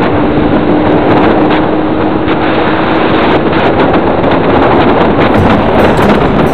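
Loud, steady rushing noise of wind and a moving vehicle, with a faint steady hum through the first half.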